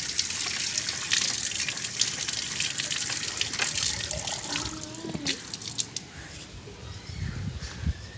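Water running from a wall tap and splashing onto a concrete floor as a plastic mug is rinsed under the stream. The splashing dies down about six seconds in.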